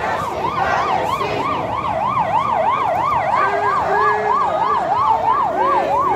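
Electronic siren in a fast yelp, its pitch sweeping up and down about three times a second without a break.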